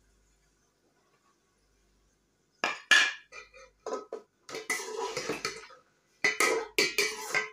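A metal slotted skimmer scraping and clinking against a metal cooking pot as chicken pieces and chopped tomatoes are stirred. It comes as a run of scrapes and clatters starting about two and a half seconds in.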